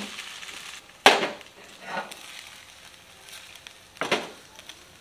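A last faint sizzle from fried noodles in a frying pan, then a few short scrapes and knocks of a spatula against the pan as the noodles are scraped out into a bowl, the loudest about a second in.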